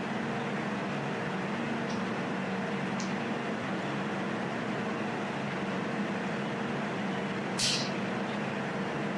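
Jewelry laser welding machine running after switch-on: a steady hum from its cooling system and fans. There are two faint ticks about two and three seconds in, and a short hissy snap near the end.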